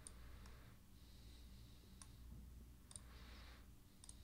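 A few faint, scattered clicks of a computer mouse over near silence.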